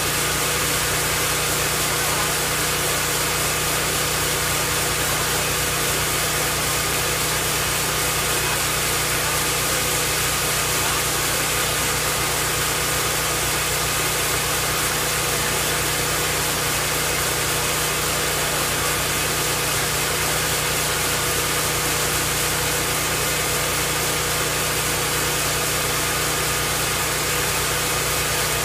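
Firewood processor running steadily, its engine and machinery making an even drone with no breaks or changes in pitch.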